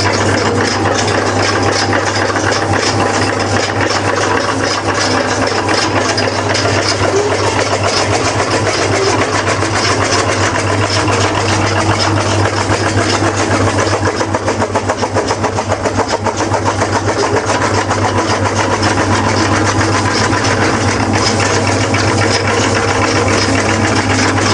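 Electric chaff cutter running steadily, its motor giving a constant low hum while the blades chop straw fed in by hand, a dense rattling hiss of cutting over the hum.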